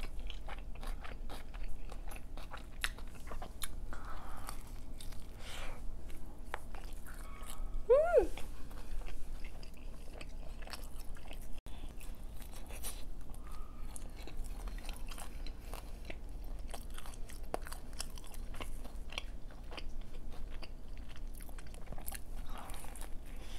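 Close-miked biting and chewing of pizza: repeated crisp crunches and wet mouth clicks. About eight seconds in, a short falling 'mm' from the eater.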